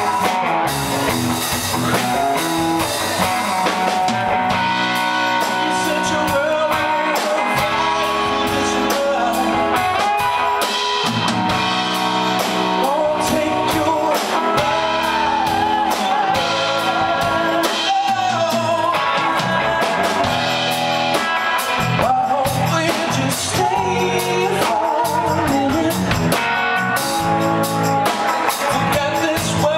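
Live rock band playing a song: electric guitar and drum kit with sung vocals over them.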